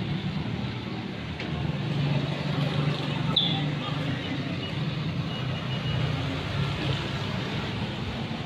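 Steady background hum and noise, with faint indistinct voices and a brief high chirp about three and a half seconds in.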